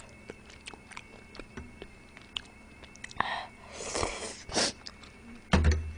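Close-miked eating of seafood noodle soup: soft chewing and small chopstick clicks, then noodles slurped from a bowl held to the mouth about three to four seconds in. A brief loud thump near the end.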